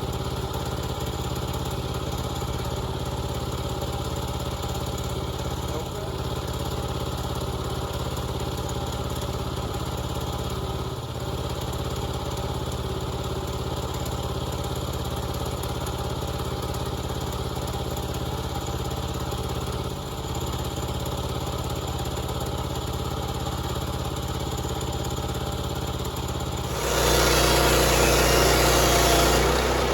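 Gas engine of a portable bandsaw sawmill running steadily. About 27 seconds in it gets louder and harsher, with a broad rushing noise added.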